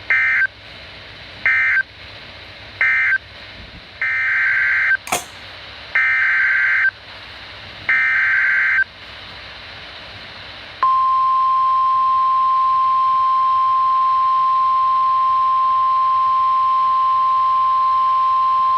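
Emergency Alert System SAME data bursts: three short screechy digital bursts, the end-of-message code, then three longer bursts, the header of the next alert. About eleven seconds in, the single steady 1050 Hz NOAA Weather Radio warning alarm tone starts and holds without a break.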